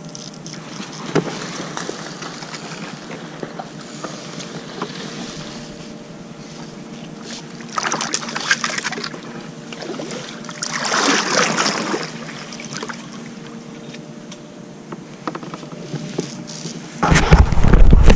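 Kayak being paddled through flooded brush: paddle strokes and water moving along the hull, with two louder swishing surges about halfway through and a loud low bump near the end.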